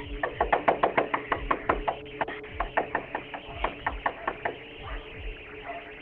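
Rapid, uneven knocking and banging on a front door, about three or four blows a second, picked up through a doorbell camera's limited-range microphone over a low, steady music drone.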